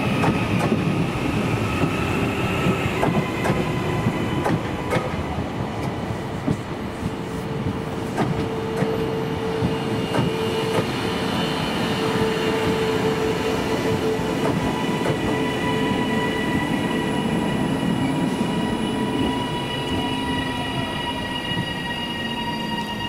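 A train running slowly over the rails, with a steady rumble and sharp clicks from the wheels over rail joints in the first half. Several steady squealing tones from the wheels on the track last through most of the passage.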